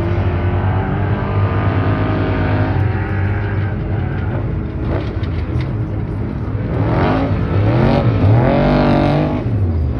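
Off-road race truck engines running hard, revving up and down; from about seven seconds in the sound grows louder, with the pitch rising and falling several times.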